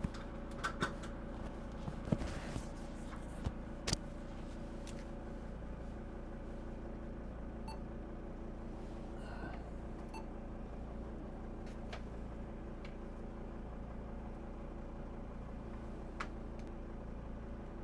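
A 2006 Mercedes Sprinter van's engine idling steadily, heard from inside the cabin. A few sharp clicks and knocks come in the first four seconds.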